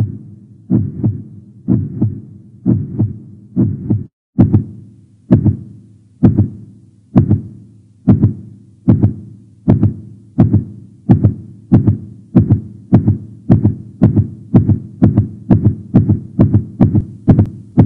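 Heartbeat sound effect: deep double thumps about once a second, then, after a brief break about four seconds in, beats that quicken steadily until they come about three a second near the end.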